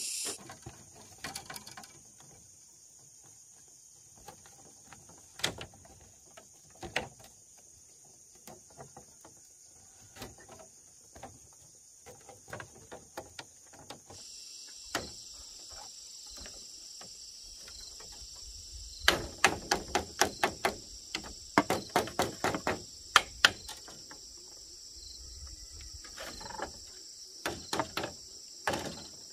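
Repeated sharp knocks of work, likely a hand tool striking wood or bamboo. They are scattered at first, then come as a quick run of strong strikes, about three a second, from about two-thirds of the way through, with a short pause and a few more near the end. Insects drone steadily in the background, fading after the start and returning about halfway through.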